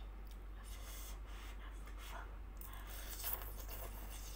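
A person slurping and eating instant noodles from a pot with a fork: a few soft slurps and rubbing sounds, with a short click about three seconds in.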